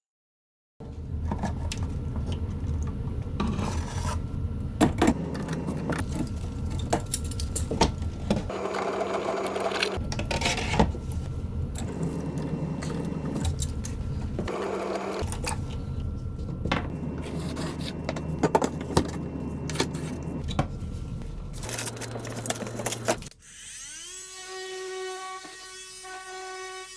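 A small power tool running with a steady hum and frequent knocks and clanks, then a motor whine that rises in pitch near the end and holds steady.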